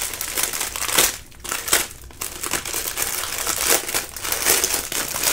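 Clear plastic bag of diamond-painting drill packets crinkling as it is handled and turned over, on and off with short gaps.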